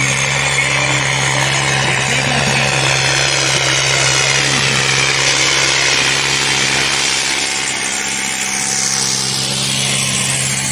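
Mahindra Arjun Ultra-1 605 DI tractor's four-cylinder diesel engine running hard under heavy load, dragging a sandbag-weighted disc harrow through loose sand. It makes a steady, loud engine note with a broad hiss over it and passes close near the end.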